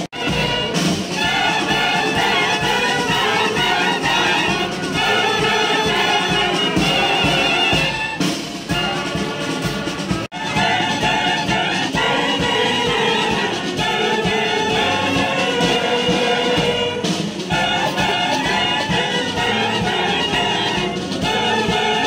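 Police military band of clarinets and brass instruments playing a tune together, with sustained melodic lines over a steady low accompaniment. The sound drops out for a moment about halfway through.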